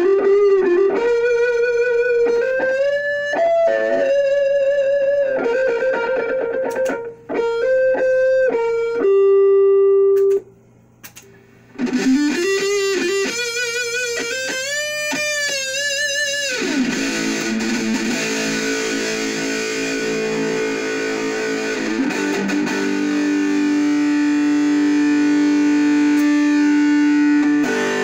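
Jackson King V electric guitar played through a heavily distorted amp: single-note lead lines with string bends and vibrato, a break of about a second and a half near the middle, then chugging distorted chords ending on a long held low note.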